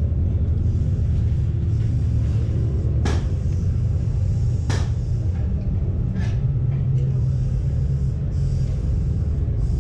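A steady low rumble with two sharp knocks about a second and a half apart near the middle, and a fainter knock a little later.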